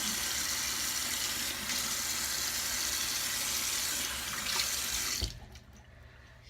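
Bathroom tap running into a sink, a steady hiss of water that is shut off about five seconds in with a short thud.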